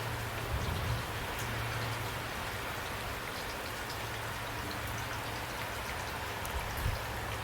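Steady rain falling, an even hiss with faint scattered drop ticks, over a low hum.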